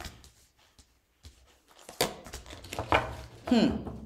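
A deck of tarot cards being handled and tapped on a table: a string of short clicks and taps starting about halfway in, with a brief murmur of voice near the end.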